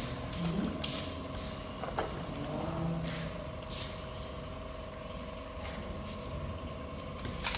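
Sliced raw onions being tossed and squeezed by hand in a metal bowl, giving a few soft rustles. A steady low hum runs underneath.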